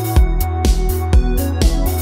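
Background music with a steady, bass-heavy beat, about two beats a second.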